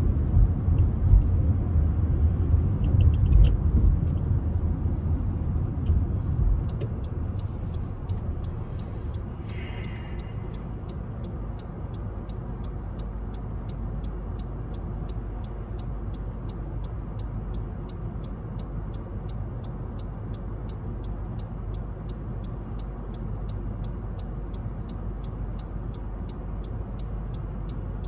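Low rumble of a car and road traffic, louder for the first six seconds or so, then steadier and quieter. From about eight seconds in, a quick, regular ticking runs over it.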